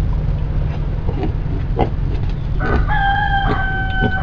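A rooster crowing: one long crow starting a little past the middle, its last note held for more than a second. A few short pig grunts come before it.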